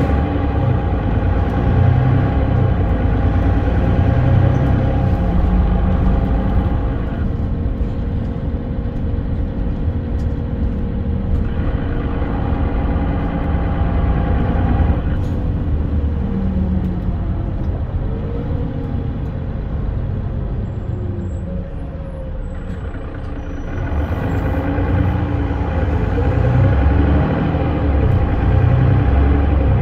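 Mercedes-Benz Citaro FL bus on the move, its OM906hLA six-cylinder diesel and ZF Ecomat automatic gearbox heard from inside the passenger saloon. The engine note changes several times, dipping a little over two-thirds of the way through and then picking up again.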